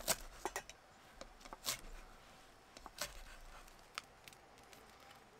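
Faint, scattered clicks and taps, about five in all, over a low hum.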